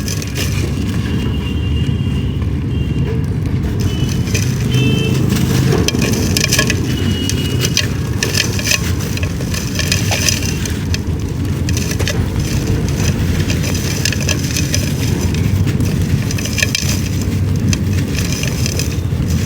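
Dried clay being crumbled by hand, a continuous dense crunching and gritty crackling.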